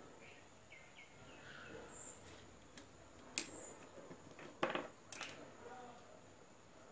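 Quiet handling noise on a workbench: a few sharp clicks and taps as wires and hand tools (pliers) are moved and picked up, the loudest near the middle, over a faint steady high-pitched whine.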